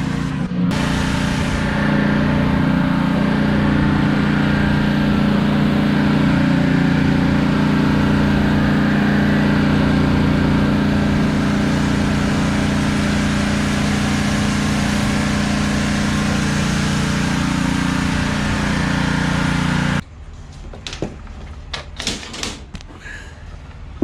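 Gas-engine pressure washer running steadily with the hiss of its spray while washing salt off snow equipment; it cuts off suddenly about 20 seconds in, leaving a few faint clicks and knocks.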